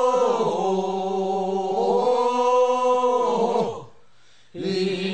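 Unaccompanied chanted singing of a Korean funeral bier-bearers' song (sangyeo-sori) in long held phrases. The voice breaks off briefly near the end and the singing starts again.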